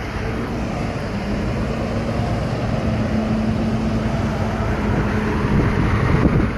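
A vehicle engine running steadily with a constant low hum, under heavy low rumbling from wind on the microphone.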